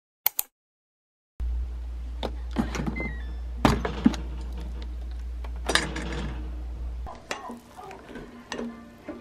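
Clicks and clunks of a Cuckoo electric pressure rice cooker's lid being unlatched and opened after cooking has finished, with a short high tone about three seconds in. A steady low hum runs under it and cuts off about seven seconds in, followed by lighter clatter.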